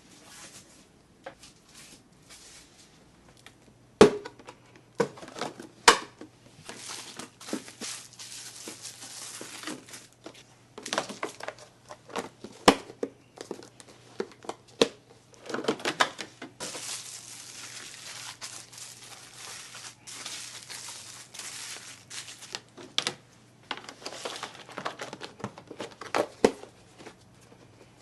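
Plastic packaging crinkling and rustling while food is handled and packed, with a few sharp knocks as items are set down.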